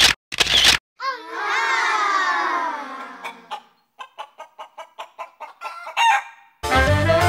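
Rooster crowing: one long call falling in pitch, then a run of quick clucks, about four a second, ending in a short squawk.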